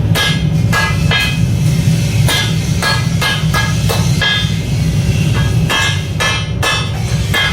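A blacksmith's hammer striking a steel sword blade, in irregular blows about two a second, each with a short metallic ring, over a steady low rumble.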